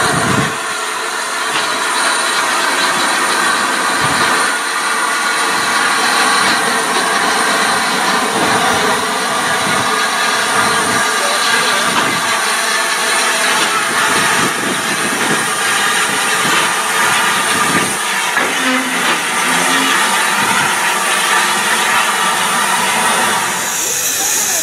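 Rebuilt Bulleid Merchant Navy class 4-6-2 steam locomotive No. 35006 passing along a station platform: a steady running noise of wheels on rails and steam, with scattered faint knocks. A sharper hiss of steam comes in near the end.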